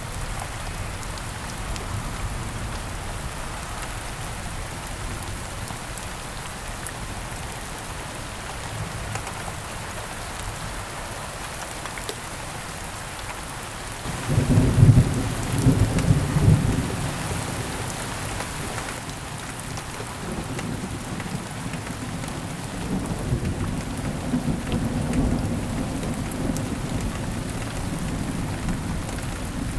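Steady rain with thunder: a low rumble of thunder breaks in suddenly about halfway through, loudest for a few seconds, then rolls on more softly a little later.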